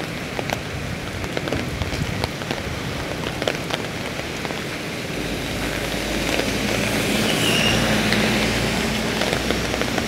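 Steady rain pattering on an umbrella overhead, with many single drops ticking on the canopy. From about five seconds in, a motor vehicle passes on the wet road, its engine rumble rising and loudest around seven to eight seconds.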